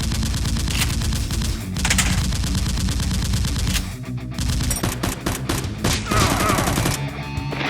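Rapid automatic gunfire sound effects in two long bursts with a short break about four seconds in, over heavy-metal background music.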